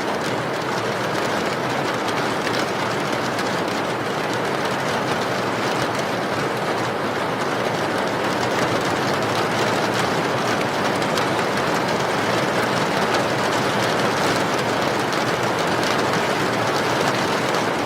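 Steady rain: an even, unbroken hiss of falling rain.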